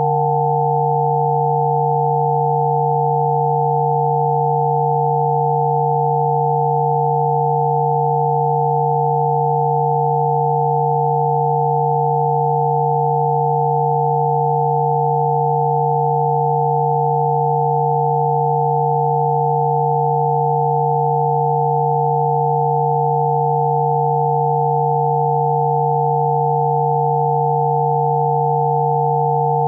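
Electronically generated Rife frequency tones: several steady pure tones sounding together, one low and about three higher, holding without any change.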